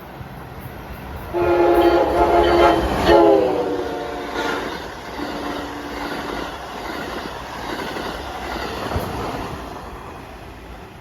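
Amtrak Acela high-speed train passing and sounding its horn: a long loud blast about one and a half seconds in, a short second blast that drops in pitch, then a fainter, lower single note. The rush of the passing train and wheel clatter follow, slowly fading.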